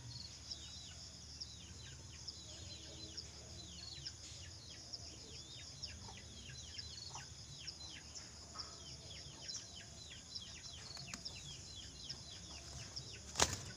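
Many small birds chirping, short falling chirps several times a second over a steady high hiss, with one sharp knock near the end.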